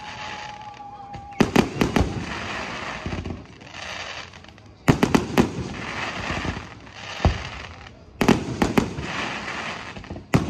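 Fireworks display: clusters of sharp bangs from bursting shells every few seconds, each followed by a spell of crackling.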